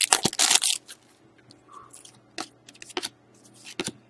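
Hockey card pack wrapper crinkling as it is torn open, loudest in the first second. It is followed by a few light rustles and clicks as the cards are handled.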